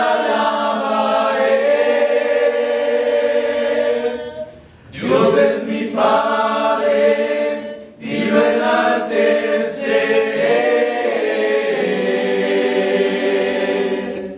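A rondalla's group of voices singing in harmony, largely unaccompanied: three long held phrases with short breaths between them, about four and a half and eight seconds in.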